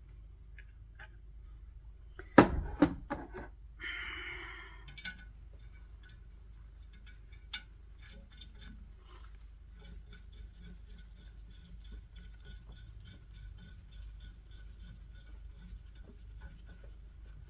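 Metal clanks and clinks from tools and parts being handled: a quick cluster of loud knocks about two and a half seconds in, a short rattle just after, then a single click and faint scattered ticks.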